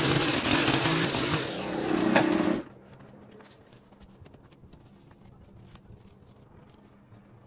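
Small engine of a piece of yard power equipment running, then shutting off abruptly about two and a half seconds in. Afterwards only faint ticks and rustling are left.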